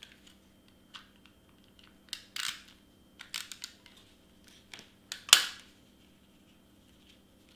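Cardstock being handled: paper rustles and scrapes as double-sided tape is run onto a white piece from a tape runner. A sharp clack a little past five seconds in is the loudest sound.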